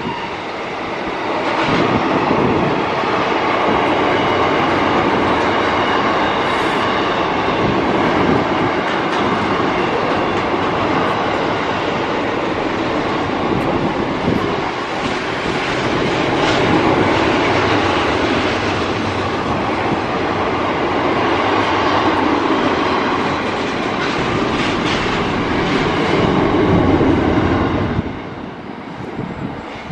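Freight train of box wagons and container flats rolling past, with a steady clatter of wheels over the rails. The sound drops away suddenly near the end as the last wagon clears.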